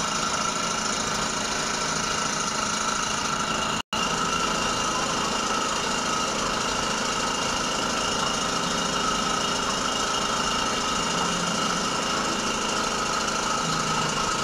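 A small electric motor running steadily: an even machine hum with a high whine. It drops out abruptly for a split second about four seconds in.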